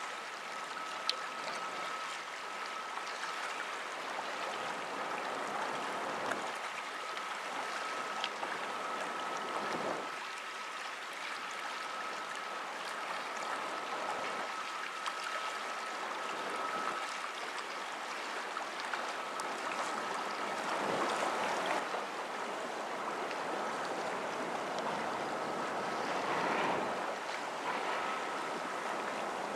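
River water washing against the shore and wind on the microphone, rising and falling in irregular swells, with a thin steady high-pitched whine running underneath.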